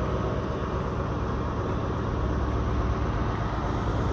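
ScotRail Inter7City HST's diesel power cars running, a steady low rumble.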